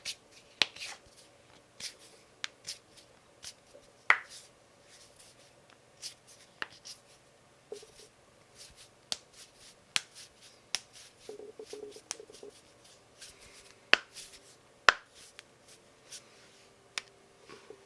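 Knuckles cracking: a string of sharp pops and clicks at irregular intervals, with a loud one about four seconds in and two more loud ones about a second apart later on.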